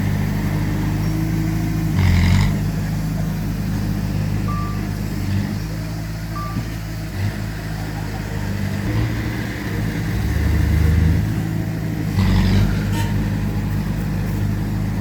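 Diesel engines of heavy earthmoving machinery running and changing pitch as they work, with two louder surges of noise about two seconds in and near the end, and a couple of short high beeps.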